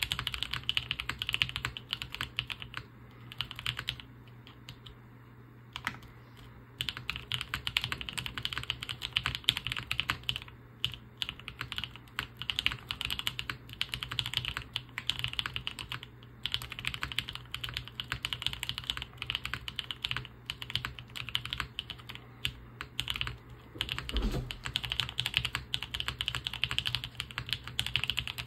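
Typing on a mechanical keyboard with stock Gateron Cream Soda linear switches, GMK Devoted keycaps, TX stabilisers and a top-mounted POM plate, modded with paper towel and force break: fast runs of key strikes. The typing breaks off for about three seconds after the first few seconds, and there is one deeper thump about 24 seconds in.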